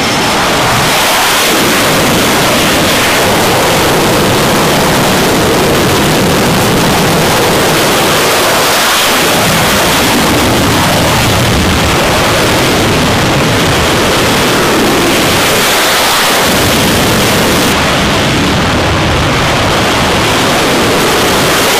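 F/A-18 Hornet jet engines running at full power on a carrier's catapult. The result is a loud, steady rushing noise that holds level with only slight swells.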